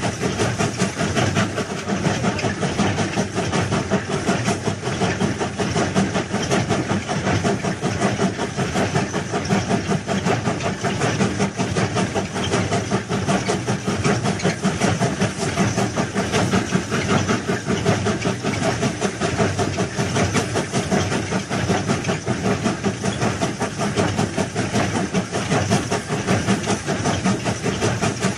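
Heavy railway track-laying machinery running steadily: a dense, unchanging engine noise with a fast, uneven flutter.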